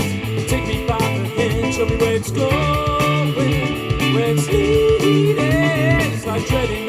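Rock song with electric guitar, bass guitar and a steady drum beat, played back through Bang & Olufsen Beolab 4000 active loudspeakers.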